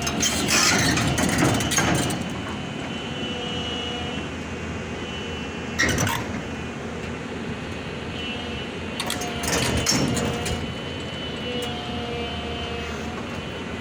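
Excavator's diesel engine running steadily under load, with faint whining tones that come and go and loud clattering bursts of metal about a second in, near six seconds and around nine to ten seconds.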